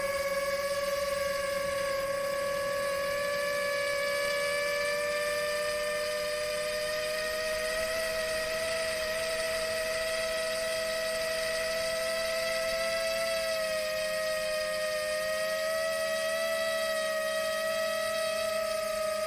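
Motors and propellers of a Rekon 5 FPV quadcopter on a 6S battery, whining steadily in cruise, the pitch drifting slowly up and down with throttle.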